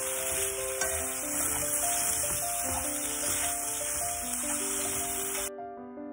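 Sliced cucumbers and red chilli sizzling in hot oil as they are stir-fried in a pan, a dense steady hiss that cuts off suddenly about five and a half seconds in, over background piano music.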